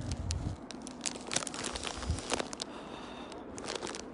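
Footsteps crunching through packed snow, with irregular crackles, rustles and a few low bumps from the phone being handled while walking.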